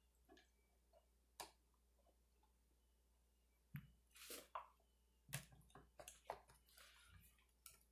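Faint clicks, taps and a brief scrape from a screwdriver and the metal and plastic housing parts of a vintage McCulloch chainsaw being unscrewed and lifted off. There is one sharp click about a second and a half in, a scrape around four seconds, and a run of small clicks and knocks in the second half.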